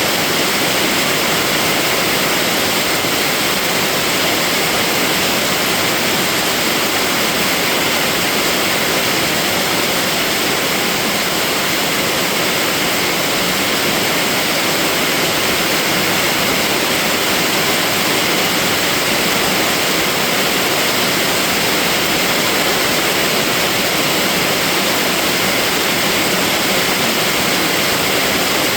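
Steady, even hiss of heavy rain falling, with no breaks or separate drops standing out.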